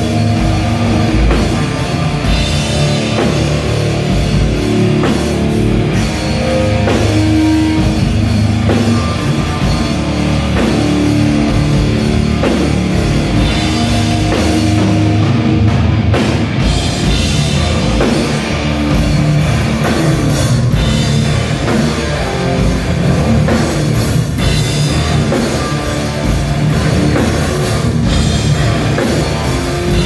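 A thrash metal band playing live and loud: electric guitars, bass and a drum kit pounding steadily together.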